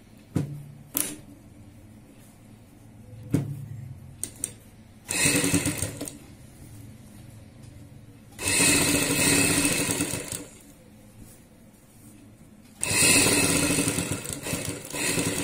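Sewing machine stitching through fabric in three short runs of one to two and a half seconds each, with a few sharp clicks before the first run.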